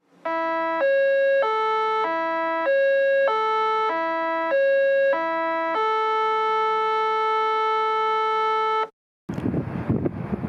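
Synthesized electronic tune: a short three-note figure repeated several times, ending on a long held note that stops abruptly. After a brief silence, wind noise on the microphone takes over near the end.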